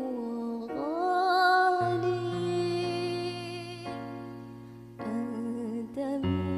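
Sholawat, Islamic devotional singing: a voice holding long, wavering notes over a sustained musical backing.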